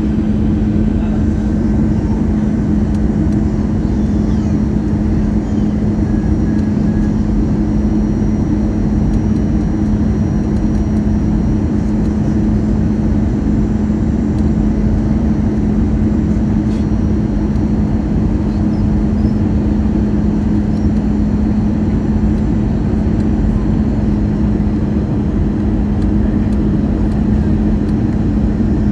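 Steady airliner cabin noise during the landing approach: engine and airflow drone with a constant low hum, unchanging throughout.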